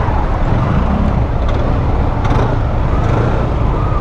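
Motorcycle engine running at low speed in slow street traffic, heard from a camera on the moving bike, with a steady low rumble of engine and wind on the microphone. A faint wavering tone rises and falls in the background.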